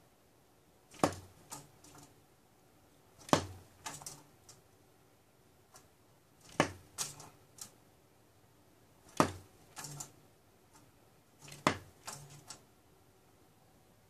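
A woodpecker pecking and knocking at a window grille: five short bouts of sharp knocks about every two and a half seconds, each starting with one loud strike followed by a few quicker, quieter taps.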